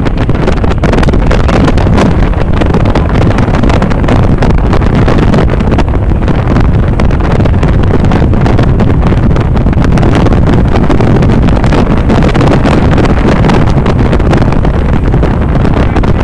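Loud wind buffeting the microphone on the open deck of a KNRM rescue boat running at high speed, over the steady drone of its engines and water rushing past the hull.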